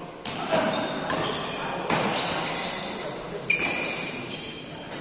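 Badminton rally: sharp racket strikes on a shuttlecock, several over a few seconds, echoing in a large hall, with players' voices.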